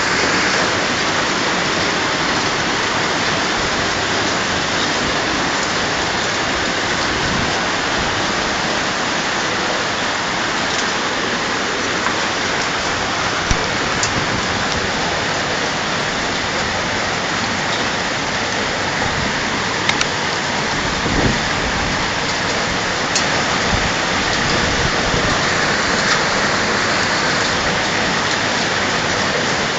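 Hailstorm with heavy rain: a dense, steady hiss of hail and rain pelting down on the street and buildings, with scattered sharp clicks as stones strike close by.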